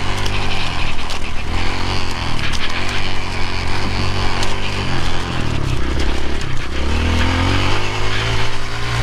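Kawasaki KLX140 dirt bike's small single-cylinder four-stroke engine being ridden, its pitch dropping about five seconds in and rising again near the end. The end plug of its muffler is pulled out, so it runs loud.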